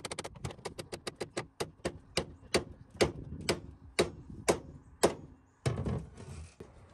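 Claw hammer striking the steel steering rod at the outboard's tilt tube to knock the old steering cable out. A run of quick light taps speeds through the first second or so, then harder ringing blows come about two a second and grow louder. A short scuffing noise follows near the end.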